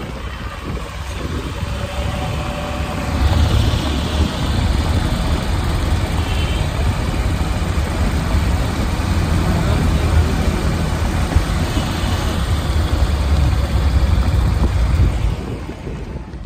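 A small car driving along the road, its road and engine noise mixed with heavy wind buffeting on a phone microphone held out of the side window. The buffeting grows louder about three seconds in and eases off just before the end.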